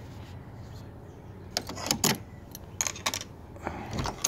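Metal latch on a wooden chicken coop door rattling and clacking as it is unfastened and the door opened: three short clusters of metallic clicks about a second apart, the last with a low knock.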